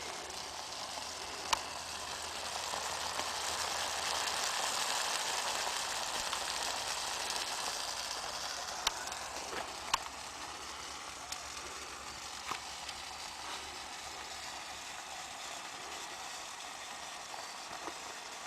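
Food frying in a pan, sizzling steadily and swelling louder for a few seconds, with a few sharp clicks and pops.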